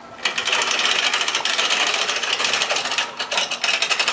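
Hand-cranked winches on a portable boat lift's corner posts, their ratchets clicking rapidly and continuously as several people crank together to raise a boat off its trailer; the clicking starts a moment in.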